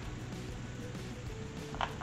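Low background music runs under a short, sharp scrape near the end, as a hand brushes the wooden workpiece on the machine bed.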